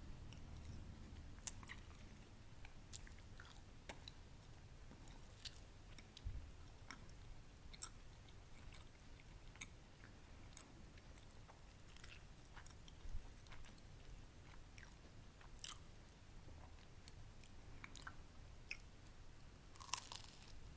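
Close-up chewing of a crispy pan-baked egg wrap, with soft crunches and small wet mouth clicks coming irregularly every second or so.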